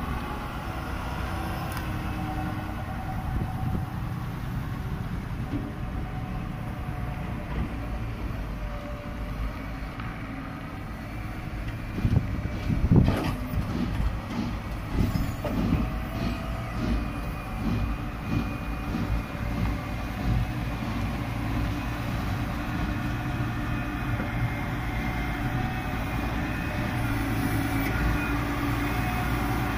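Steady low rumble of a vehicle engine running, with a faint drifting hum over it. About twelve seconds in come a few sharp knocks and handling noises.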